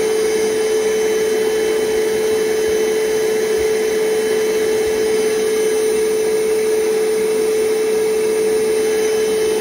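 Single-speed cordless shop vacuum in a 3D-printed VacOUT Packout-style housing, running steadily: an even motor hum with a thin high whine above it. It measures about 83 decibels from two feet.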